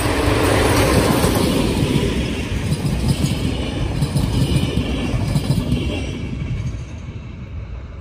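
Diesel-hauled passenger train passing close by: the locomotive is loudest about a second in, then the coaches roll past with their wheels clattering on the rails, the sound fading toward the end as the train moves away.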